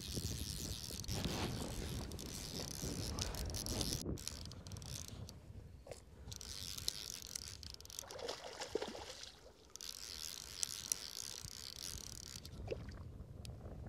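Outdoor ambience: wind rumbling on the microphone, heaviest in the first few seconds, with a high insect chirping that comes and goes and a few faint clicks.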